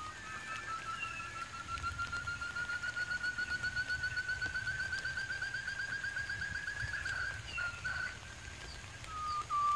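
A quail's call: a long trill of rapid repeated notes, about seven or eight a second, that slowly rises in pitch and grows louder, then stops about three quarters of the way through. After a pause a new trill begins near the end.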